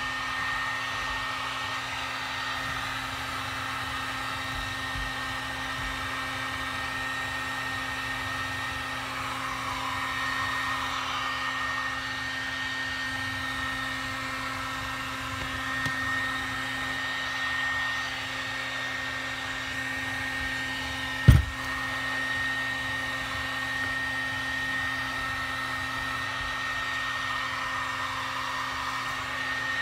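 Electric heat gun running steadily with a constant fan whine, heating a gearbox housing to loosen a bearing. A single sharp knock about two-thirds of the way through.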